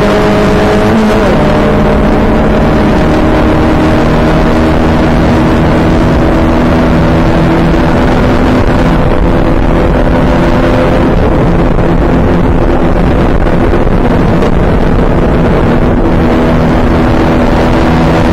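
Open-wheel race car's engine heard onboard, held at steady high revs, with a brief dip in pitch about a second in, over heavy wind rush on the microphone.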